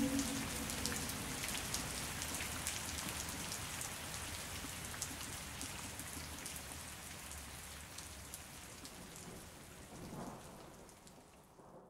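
Steady rain with scattered drop ticks, fading out gradually to nothing, with a brief rumble about ten seconds in. The last of a siren's wind-down dies away right at the start.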